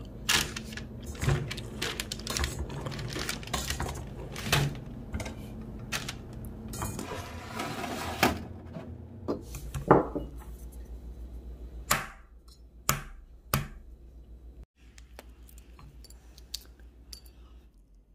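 Eggs clicking and knocking against each other and a perforated metal colander as they are handled: a quick, dense run of taps, then a few separate louder knocks. Near the end there is a faint crackle, as of a roasted eggshell being peeled.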